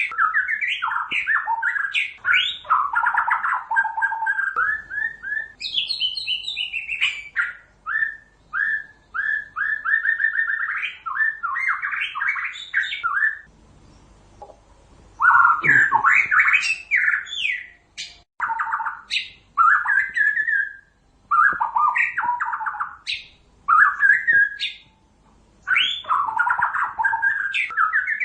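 White-rumped shama singing a long, varied song of quick, repeated whistled and chattering phrases, broken by a few short pauses.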